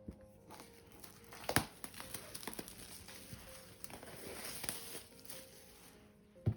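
Hands opening and handling packaging: rustling and crinkling with scattered clicks and a sharp knock about a second and a half in, and another knock near the end.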